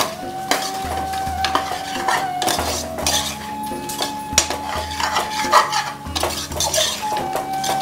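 A perforated steel ladle scraping and clinking against the inside of a metal pressure cooker, stirring mutton with turmeric and chilli powder, in repeated strokes.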